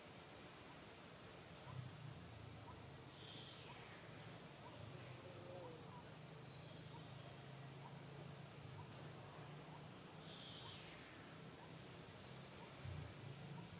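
Faint forest ambience: a steady, high-pitched drone of insects. Two brief falling calls come about three and ten seconds in.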